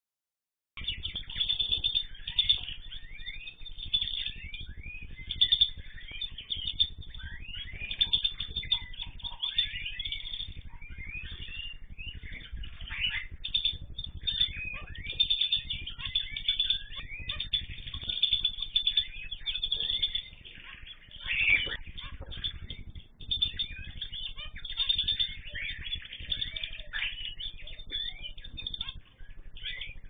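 A mixed aviary flock of canaries, zebra finches and cockatiels chirping and calling all at once: a dense, unbroken stream of short rising and falling notes.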